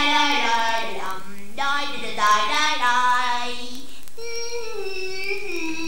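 A high voice crying in three long, drawn-out wails that each slide downward in pitch: the crying of the flowers as they are picked.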